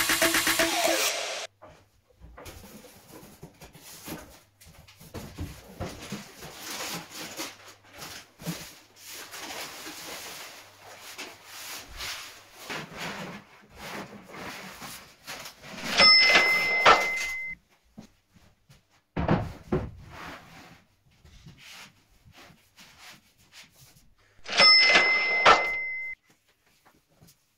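Workshop handling noise: a thin walnut veneer roll rustling as it is handled, and MDF boards being moved on a workbench. Two louder bursts about eight seconds apart stand out, each with a high ringing note, with a dull knock between them.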